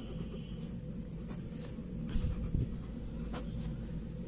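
Handwriting: short scratching strokes of a writing tip on the writing surface, over a steady low hum.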